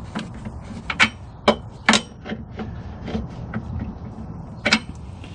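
Sharp metallic clicks and taps from hand tools working the bolts of an aftermarket steel jacking rail up under the car. Three strong clicks come about half a second apart a second in, then lighter ticks, and one more strong click near the end.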